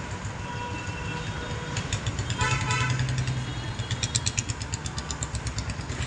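Motor vehicle engine running, with a steady low hum and a fast, even ticking in the second half; a brief horn-like tone sounds about two and a half seconds in.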